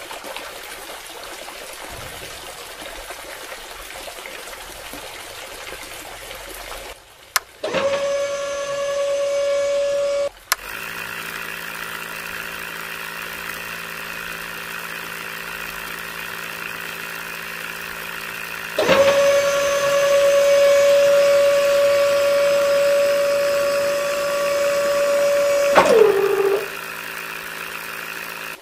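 Small DC motors of a toy borewell drilling rig and its mini submersible water pump running, with water pouring from a plastic tube into a muddy hole. A high steady motor whine comes in twice, the second time longer, and sags in pitch as it winds down near the end; between the two a lower steady motor hum runs.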